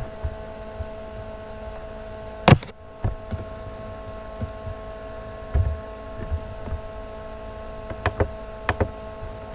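Steady hum with a few clicks and knocks over it: one loud, sharp click about two and a half seconds in, a lighter knock a few seconds later, and two quick pairs of clicks near the end.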